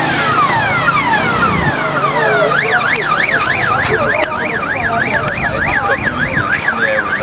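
Electronic vehicle siren sounding loudly: repeated falling sweeps that switch about two and a half seconds in to a fast rising-and-falling warble of about three to four cycles a second.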